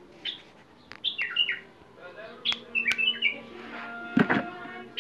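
Caged bulbul singing in short bursts of quick, falling whistled chirps, with a loud knock about four seconds in.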